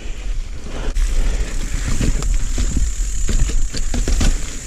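Mountain bike ridden over a wet, leaf-covered trail: a steady low rumble with many irregular clicks and rattles from the tyres and bike.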